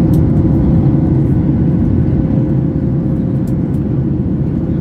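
Steady cabin noise inside a Boeing 737 MAX 8 in its climb: a deep rumble from the CFM LEAP-1B engines and the airflow, with a faint steady hum over it.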